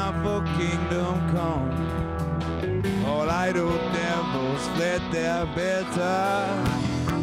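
Live band music: a male voice singing over electric guitar, electric upright bass and drums.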